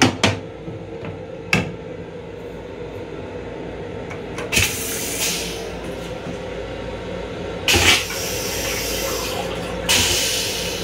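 Train lavatory toilet with a stainless-steel bowl flushing. A few sharp knocks come in the first two seconds, then a hiss of rinse water about four and a half seconds in, a louder rush near eight seconds and another near ten seconds as the bowl empties. A steady hum runs underneath.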